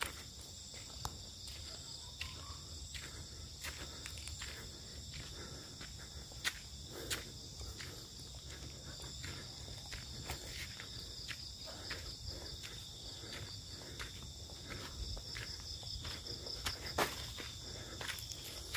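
Dusk insect chorus: a steady, high-pitched chirring with a soft pulsing. It is dotted with many short clicks and taps, plus a low rumble underneath.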